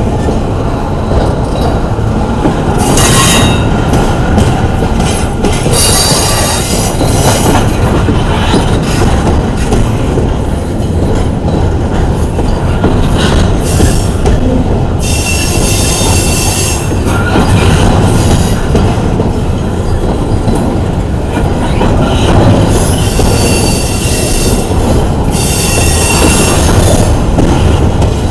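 Intermodal freight cars rolling slowly past, a steady heavy rumble of steel wheels on rail. Several times the wheels squeal against the rail in high-pitched stretches lasting a second or two.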